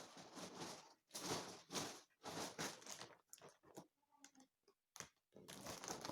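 Crinkly packaging being handled and opened, rustling and crackling in short bursts with brief pauses.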